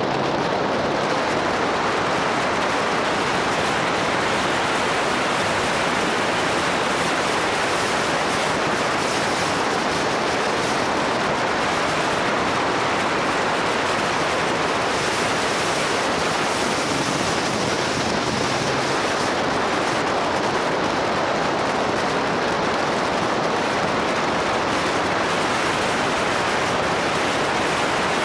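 Steady rushing wind noise on the microphone of a camera mounted on a moving motorcycle, with no clear engine note through it.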